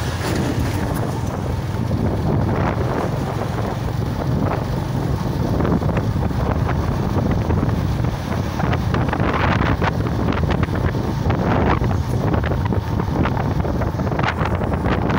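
Wind buffeting the microphone of a moving vehicle over a steady low rumble of engine and road noise, with occasional short knocks or rattles.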